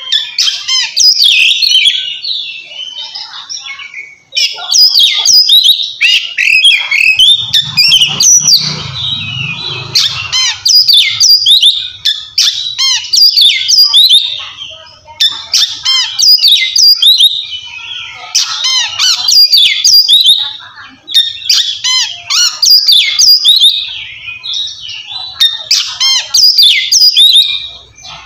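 Oriental magpie-robin (kacer) singing loud, clear 'ngeplong' song: rapid, varied whistled phrases delivered in bursts of a few seconds, with brief pauses between them.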